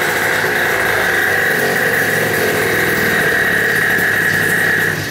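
Yamaha Aerox YQ50's 50cc two-stroke single-cylinder engine, fitted with a Dellorto PHVB 22 carburettor, a Stage6 open air filter and a Stage6 PRO Replica exhaust, running loud and steady at an even engine speed.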